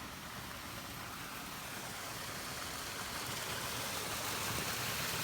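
Small waterfall's water rushing, a steady hiss that grows gradually louder.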